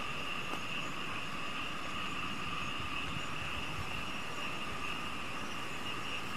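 Steady chorus of night insects: a continuous high buzzing that holds the same two pitches without a break, with one faint click about half a second in.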